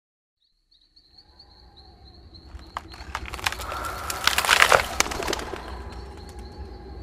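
Logo-intro sound effects: out of silence a low rumble and a thin, steady high whistle fade in. They swell to a flurry of crackling, flapping noise about four to five seconds in, then settle back to the rumble and whistle.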